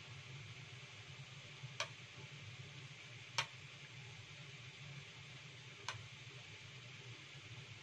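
A spoon clicking against a ceramic bowl three times while scooping tapioca filling, over a faint steady hiss.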